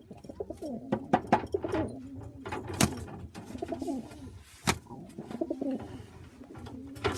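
Domestic pigeons cooing repeatedly in a small loft, with several sharp clicks and knocks among the calls.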